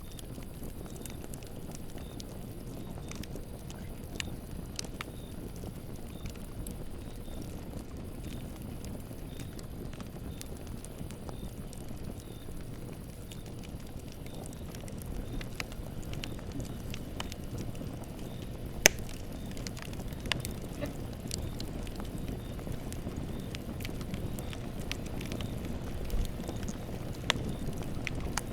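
Campfire burning: a steady low rush of flames with irregular sharp crackles and pops of the wood, one louder pop about two-thirds of the way through.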